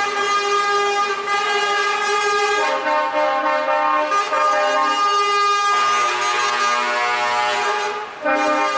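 Truck air horns sounding continuously, several tones together in chords that shift in pitch every few seconds, with a short dip near the end.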